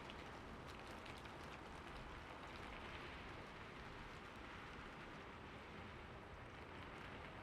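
Faint, steady rain falling, with light patter of drops.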